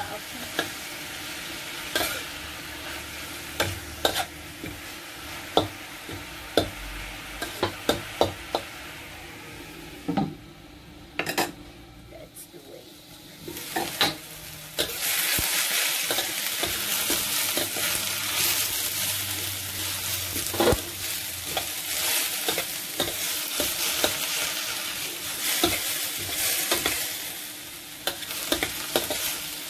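Vegetables stir-frying in a stainless steel wok: a steady sizzle with frequent scrapes and taps of a metal spatula against the pan. The sizzle drops away for a few seconds around the middle, then comes back louder and stays loud.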